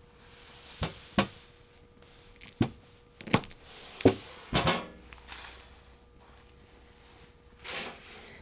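A razor blade scraped along a mini ferrocerium rod, about six quick, sharp strikes over the first five seconds, throwing sparks.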